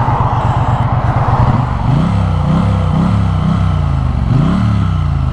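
Triumph Bonneville T100's 900 cc parallel-twin engine running, steady at first, then its revs rising and falling several times from about a second and a half in, with wind noise over it.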